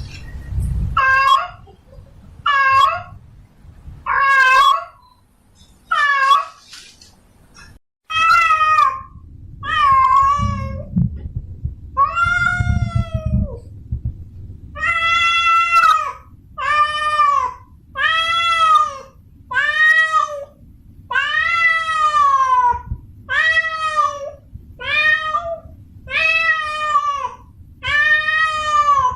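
Female domestic cat in heat calling for a male: a long run of drawn-out meows, each rising then falling in pitch. The calls come about every two seconds at first, then about one a second after a brief break.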